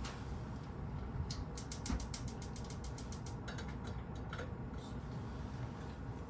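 Cat eating a lickable soup treat: a quick run of small wet clicks about a second and a half in, then scattered single clicks, over a steady low hum.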